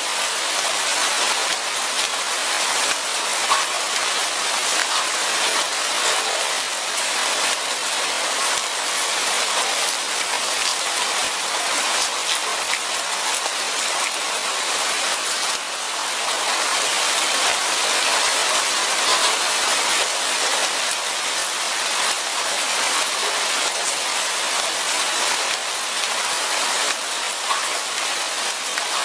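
Rain falling steadily, a dense even hiss flecked with the ticks of individual drops.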